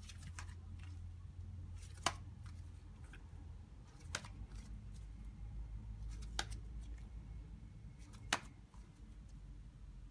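Thick flour-and-toilet-paper slime being stretched by hand, with faint sticky crackles and four sharp clicks about two seconds apart.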